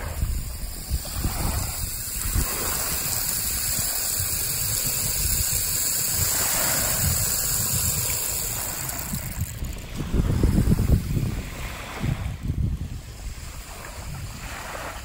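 Homemade rainstick of PVC pipe with about 300 toothpicks spiralled inside and plastic resin pellets clattering slowly down through them: a steady rain-like rattling hiss that dies away about nine or ten seconds in. Small waves lap at the shore after it, with wind gusting on the microphone.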